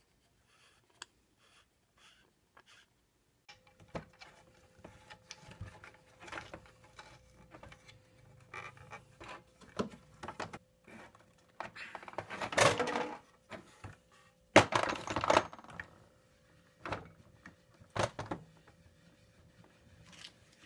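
Wooden lathe parts being handled and fitted together: irregular knocks, thunks and scrapes of wood on wood, with two louder scraping rattles about twelve and fifteen seconds in, and a few sharp single clicks near the end.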